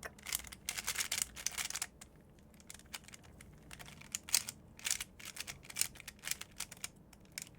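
Plastic clicking of a springless MoYu RS3M 2020 3x3 speed cube being turned by hand: a quick run of turns in the first two seconds, then scattered single turns and short flurries.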